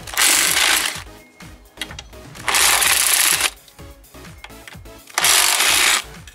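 Cordless impact driver with a socket extension hammering on a bolt in three bursts of about a second each, with short pauses between, as the fastener is loosened. Background music plays underneath.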